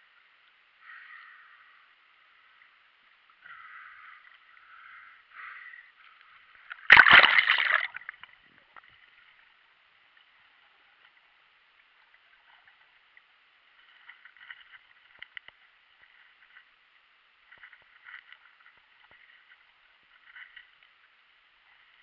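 Water sloshing, muffled in a GoPro's waterproof housing, then one loud splash about seven seconds in as the freediver dives and the camera goes under. After that, only faint scattered clicks and crackles underwater.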